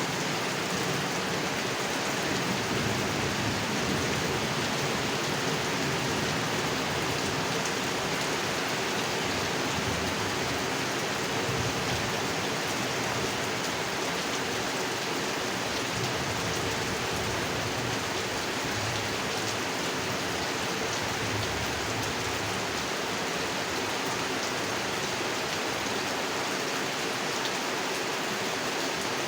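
Heavy rain falling steadily on a pond, an even, unbroken hiss of drops on water.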